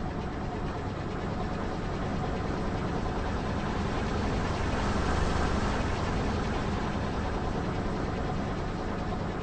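Car engine running slowly, a steady low rumble under a broad hiss that swells a little around the middle.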